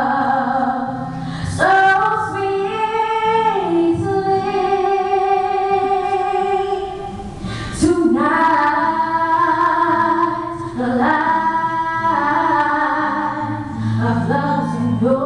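A young girl singing a pop song solo into a handheld microphone, holding long notes in two phrases, over a musical accompaniment.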